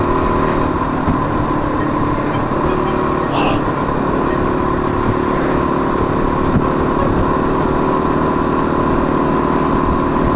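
Single-cylinder dual-sport motorcycle engine running at a steady speed.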